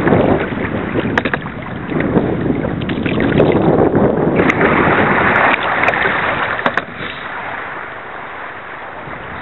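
Water swishing and splashing around a kayak in surges, with wind buffeting the microphone and a few light knocks; it settles quieter near the end.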